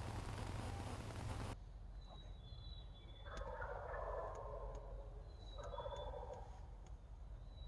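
A steady hiss of noise cuts off abruptly, then a wild turkey tom gobbles twice, a longer rolling gobble followed by a shorter one, with faint songbird chirps above.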